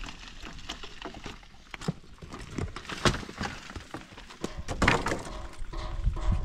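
Irregular knocks and clatter, typical of scrap metal and debris being handled and thrown about. A drawn-out pitched sound joins in about five and a half seconds in.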